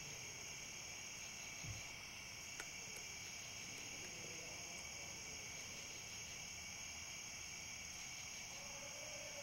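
Night insect chorus, a steady high chirring in two pitch bands, with a faint low thump a little under two seconds in.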